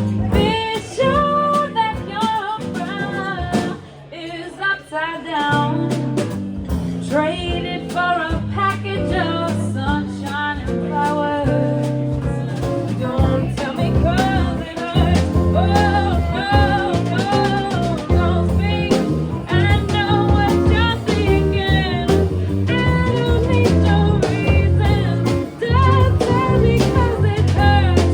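Live jazz-blues band playing with a singer: a sung melody over bass, guitar and drums, briefly quieter about four seconds in.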